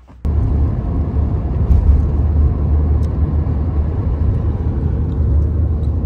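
Steady low rumble of a moving car heard from inside the cabin, cutting in just after the start.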